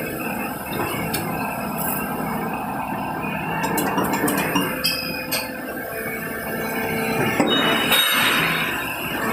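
Plastic injection moulding machine running a cable tie mould through its cycle: a steady machine hum as the mould opens and closes, with a few sharp metallic clinks in the middle while it stands open and a louder hissing rush near the end.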